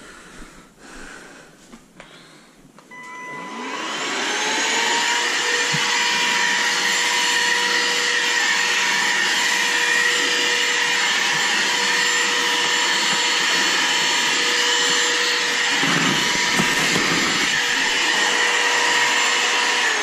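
Bagless stick vacuum switched on about three seconds in, its motor whine rising to speed over a second or two, then running steadily with a high whine over a rushing hiss of air.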